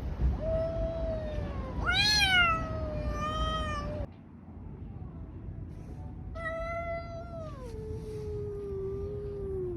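Cats caterwauling in a fight standoff: long, wavering yowls, the loudest rising and falling sharply about two seconds in, and another long howl starting after six seconds that drops lower in pitch and holds.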